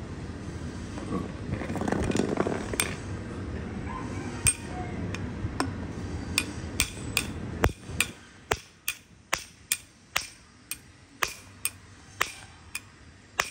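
Steel head of a Crossman hammer striking the steel strike cap on the handle end of a Kingtony PH4×300 mm strike-through screwdriver: sharp metallic taps, a few spaced out at first, then a steady run of about two a second.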